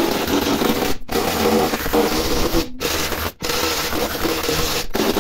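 Handheld power tool cutting through the rusted sheet metal of a Ford Fiesta's rear wheel arch, a steady rasping noise broken by four brief stops.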